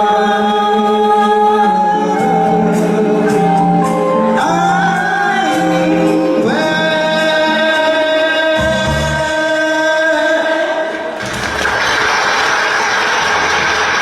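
Vocal music: singing with accompaniment on long held notes, the pitch changing in steps. About eleven seconds in the music stops and a steady, even rushing noise takes over.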